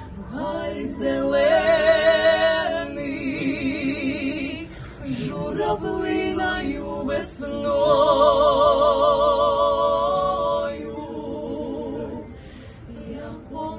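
Female vocal trio of Cossack singers singing together a cappella, with no instruments. The voices hold long notes with vibrato, swelling loudest twice and growing softer near the end.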